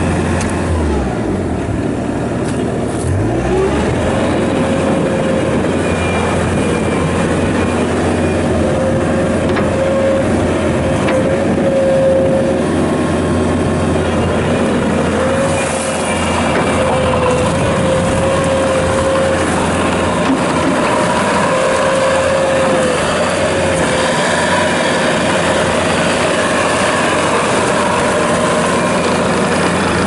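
2016 Bobcat T650 tracked skid steer loader's diesel engine running under load while the machine drives and lifts its boom, with a wavering whine over the steady engine note for much of the time.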